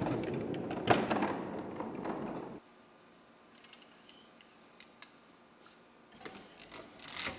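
Loaded plywood cart rolling on its casters across a concrete floor, a steady rumble with rattles and clicks that cuts off suddenly about two and a half seconds in. Near silence follows, then a few faint knocks near the end as a metal bar clamp is set into the cart's rack.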